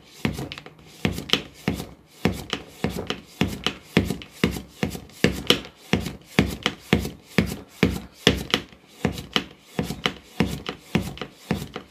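Hand vacuum pump working a vacuum lid on a glass jar: quick, even strokes, about two or three a second, drawing the air out of the jar.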